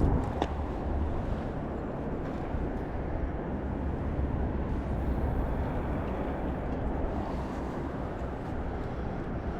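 Steady low outdoor rumble, with a couple of small clicks right at the start.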